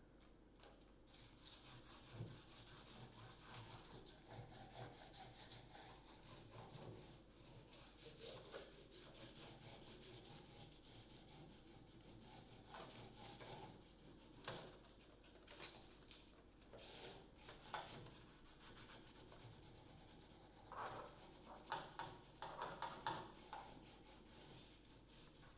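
Pencil rubbing back and forth over graph paper laid on a raised glyph, taking a rubbing of it; faint and scratchy, with a few louder sharp scrapes in the second half.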